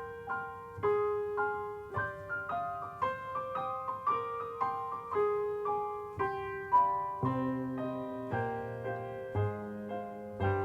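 Piano music: a gentle melody of single struck notes, about two a second, with lower bass notes coming in about seven seconds in.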